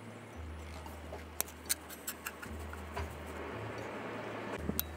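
Metal screwdriver tip scraping and ticking against the rusty metal cover plate of an old Kubota stationary engine: scattered sharp clicks, then a scratchy rasp that builds up near the end.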